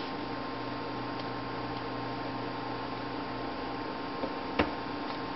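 Steady electrical hum with a faint hiss, broken by one sharp click about four and a half seconds in.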